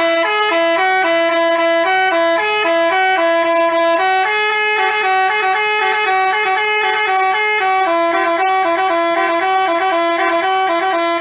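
Telolet basuri musical bus horn playing a tune, its notes stepping quickly back and forth between a few pitches. It stops abruptly at the end.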